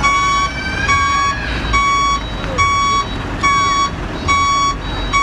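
Truck reversing alarm beeping at about one beep a second, each beep a short tone with overtones, over the low rumble of diesel truck engines.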